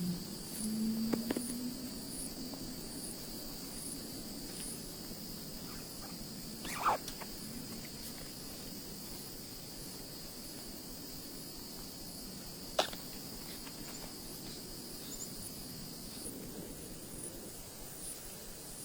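Insects chirping steadily in a high, even trill, with two short sharp clicks about seven and thirteen seconds in.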